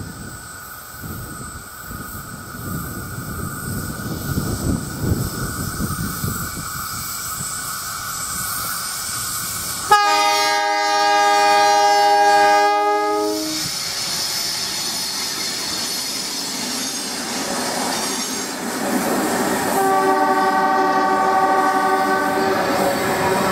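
NSW 44 class diesel-electric locomotive approaching under power, its engine rumble growing louder. About ten seconds in, its horn sounds one sudden, loud blast of about three and a half seconds. As the carriages pass, wheels run over the rails and a second, quieter long horn-like tone sounds near the end.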